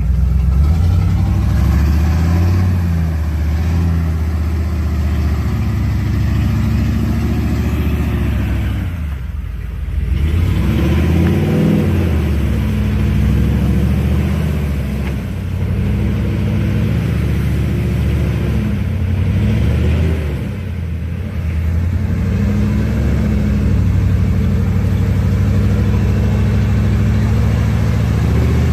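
Off-road 4x4's engine revving up and easing off again and again, with a brief drop about nine seconds in, as its spinning wheels dig it deeper into a hole instead of pulling it out.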